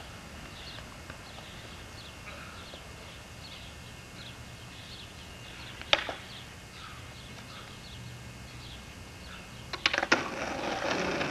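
A skateboard clacks once on the asphalt about six seconds in, then a few quick clacks near the end are followed by the wheels starting to roll on the street.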